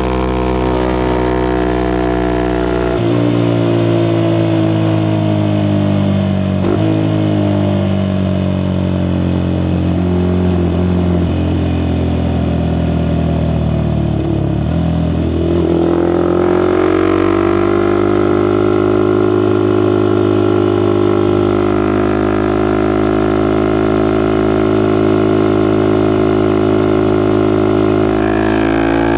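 Suzuki Gixxer SF 250's single-cylinder engine running through a Yoshimura R11 exhaust while riding. Its note jumps about three seconds in, with brief breaks like gear changes. It sags lower around the middle, then climbs again and holds a steady drone through the second half.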